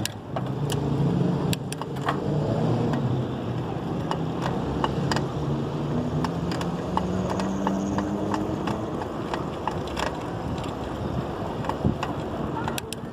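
A motor vehicle's engine running, with a pitched hum that drifts slowly up and down, amid street noise and scattered sharp clicks.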